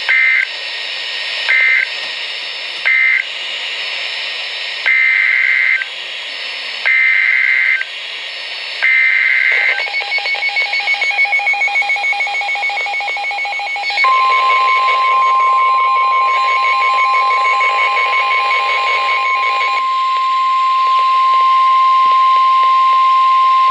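NOAA Weather Radio Emergency Alert System signal: three short buzzy SAME data bursts end the previous warning, then three longer bursts carry the header of the next flood warning. A rapidly pulsing two-tone beep then sounds, and about 14 seconds in the steady 1050 Hz warning alarm tone comes on and holds to the end, marking a new warning about to be read.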